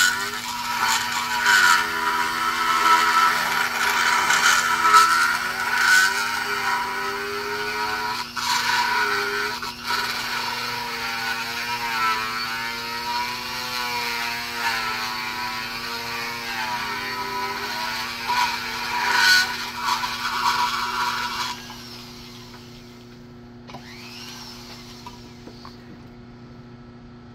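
Flex-shaft rotary grinder grinding down aluminum filler in the port of a cast-iron Oldsmobile 350 cylinder head, its whine wavering in pitch as the bit bites and eases off. It stops about three-quarters of the way through, followed by a brief rustle of handling.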